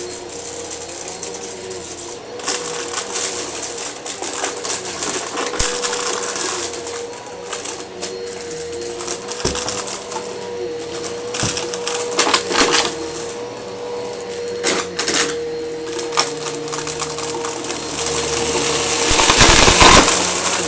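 Eureka vacuum cleaner running with a steady motor whine while it sucks up crunchy debris that rattles and clicks through it at irregular moments. The rushing noise grows louder over the last few seconds.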